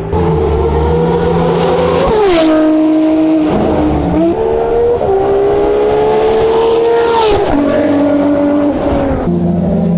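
Ferrari race car engines running at high revs. Twice the pitch climbs and then drops sharply, about two seconds in and again about seven seconds in. Music starts near the end.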